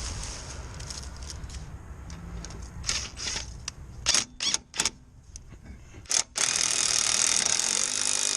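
Impact wrench run in a few short trigger bursts, then held for a longer steady run that stops abruptly near the end, spinning the first lug nut onto the wheel stud.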